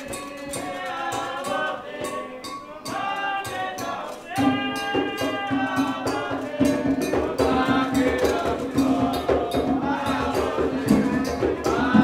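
Group singing of an Afro-Brazilian ritual chant, with a steady rhythm of shaken and struck percussion that grows louder about four seconds in.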